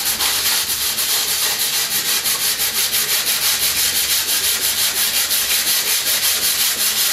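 Sandpaper rubbed by hand back and forth over a cabinet door, a steady hiss pulsing in quick, even strokes. This is light sanding along the grain to key the surface for paint.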